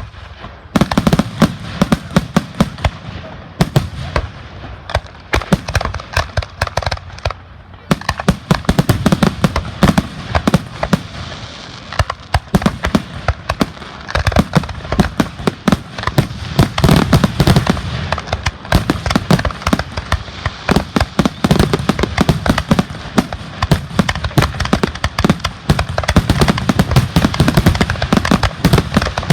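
Fireworks grand finale: a dense, rapid barrage of sharp bangs and crackles, with deep booms swelling every few seconds.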